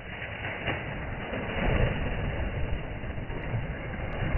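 A cast net slapping down onto pond water, followed by steady, heavy splashing and churning where the net lies. The sound is dull and muffled.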